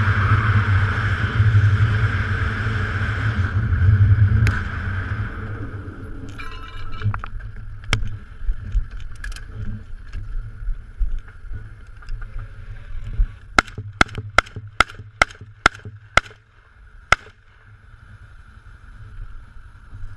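An ATV engine running, which drops away about four seconds in. Later comes a rapid string of about eight shots from a Saiga-12 semi-automatic 12-gauge shotgun, a little over two a second, with a longer gap before the last.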